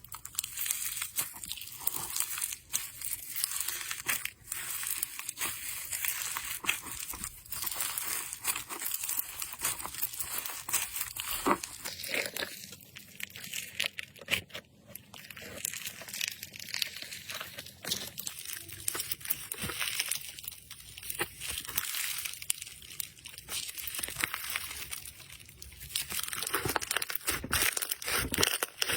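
Slime being squeezed, stretched and pressed by hand, giving a dense run of small crackling clicks and pops.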